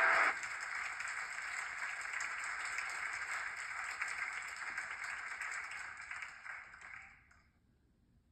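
Audience applause, heard through a computer's speakers. It drops a step just after the start, carries on steadily, then dies away about seven seconds in.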